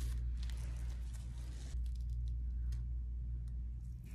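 A low steady hum, with faint scratchy rustles and small ticks from the adhesive tape and nasal cast being picked loose from the nose with tweezers and a cotton swab.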